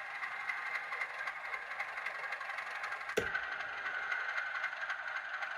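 Class 37 diesel locomotive idling, played by an ESU LokSound 5 sound decoder through a miniature model-railway speaker, thin with almost no low end. About three seconds in, a click as it switches to the next speaker, and the tone of the idle changes.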